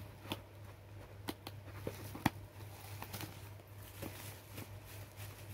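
Bubble wrap and a cardboard box being handled: scattered soft crinkles and small sharp clicks, the sharpest a little over two seconds in, over a steady low hum.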